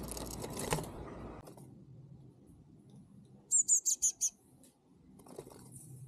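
Blue tit calling: a quick run of about five thin, high chirps a little past the middle. Before that, a rustling noise fades out over the first second and a half.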